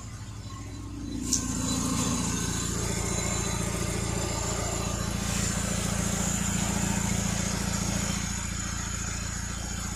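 2008 Hyundai Tucson's gasoline engine idling with the air conditioning on, driving its newly fitted AC compressor by the belt. A steady hum with a faint high whine, a brief click about a second in, and the hum growing louder just after.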